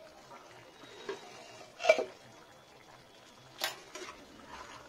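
Spatula knocking and scraping against a kadai of chicken curry: a light knock about a second in, two louder knocks at about two and three and a half seconds, then softer scrapes near the end.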